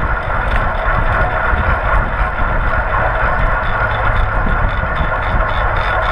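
Steady rush of wind buffeting an action camera's microphone, with tyre noise from bicycles riding fast on asphalt.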